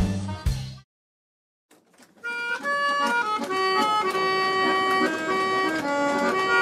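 Background music: a drum-and-guitar track cuts off under a second in, and after about a second of silence a new tune of held, stepping notes starts about two seconds in.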